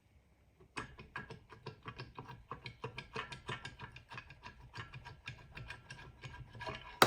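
A rapid, somewhat irregular run of small sharp clicks, about six a second, starting about a second in and going on steadily.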